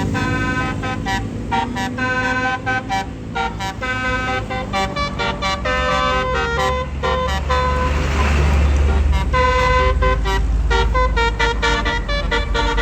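Bus 'telolet' multi-tone air horns playing a fast tune of short changing notes over a bus engine's deep rumble. About eight seconds in the horn notes pause for a rush of noise as the engine rumble swells, then the tune resumes.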